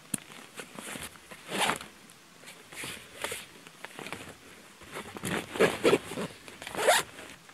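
A backpack's zippers being pulled and its fabric rustling as hands rummage through the pack, in several separate swishes with a few small clicks, the loudest group near the end.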